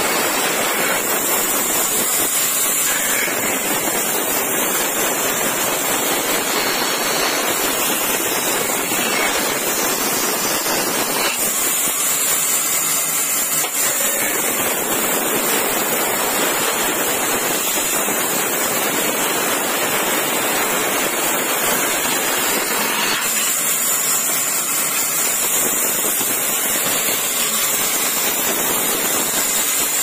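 Vertical band saw running and ripping along a length of old, weathered timber: a loud, steady rushing hiss of the blade through the wood. The tone changes slightly twice as the cut goes on.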